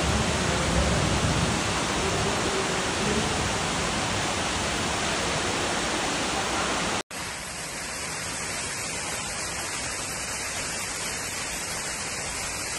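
Floodwater rushing steadily as it gushes through the gaps of closed glass doors. After a sudden cut about seven seconds in, floodwater cascades down a staircase, a little quieter and with less low rumble.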